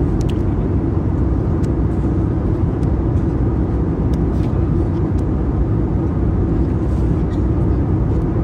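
Steady roar inside the cabin of an Airbus A320neo, from its Pratt & Whitney geared turbofan engines and the airflow, with a few faint ticks.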